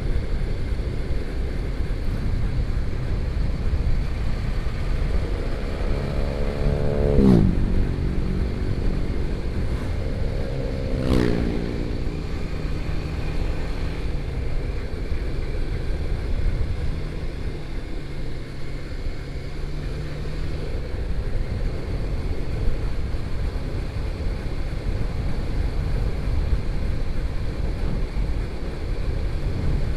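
Steady engine and road noise of a motorcycle ride. Two other vehicles pass close by, about 7 and 11 seconds in, each engine sound dropping sharply in pitch as it goes past.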